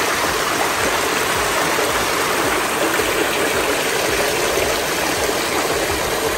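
Small mountain stream rushing steadily down over rocks in a series of little cascades.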